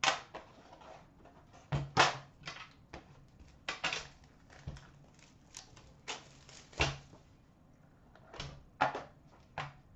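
Hard cardboard hockey card box being handled and opened on a glass counter: a series of sharp clicks, knocks and scrapes as the lid comes off and the box and inner box are set down, with the loudest knocks about two, four and seven seconds in.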